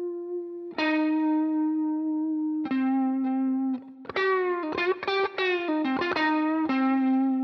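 Electric guitar, a Fender Stratocaster through a Vox AC15 tube amp with light overdrive, playing slow single held notes shaken with a narrow, controlled blues vibrato, with a quick run of bent and wavering notes around the middle.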